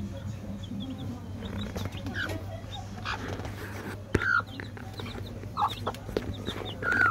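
Domestic chicks peeping in many short, high cheeps while the brooding hen clucks a few times, louder and lower, over a steady low hum.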